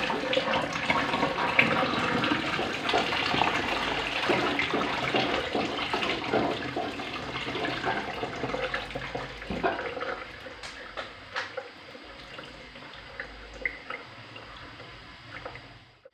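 Soaking water being poured off rice from a plastic basin, a steady splashing pour that dies down after about ten seconds.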